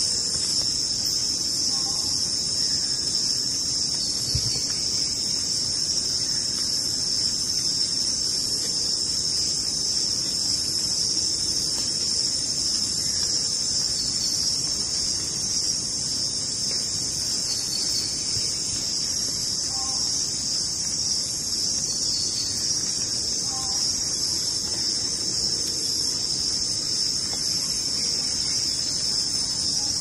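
Steady insect chorus of crickets, a continuous high-pitched shrill that holds level with no pauses.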